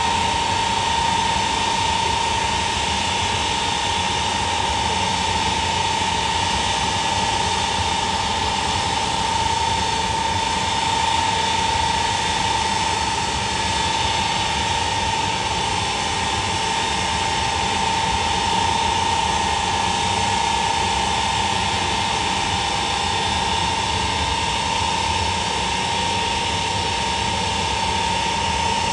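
Jet engines of a Russian Ilyushin Il-76 transport plane running steadily on the ground, a constant high whine over an even rush.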